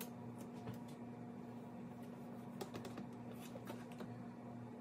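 Faint, scattered light clicks and crinkles of a vinyl decal strip being handled and pressed around the rim of a robot vacuum, over a steady low electrical hum.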